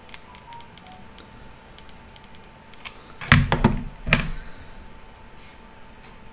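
Light clicking and tapping as a wooden clothespin and small craft tools are handled on a wooden tabletop, with a few louder knocks a little past the middle.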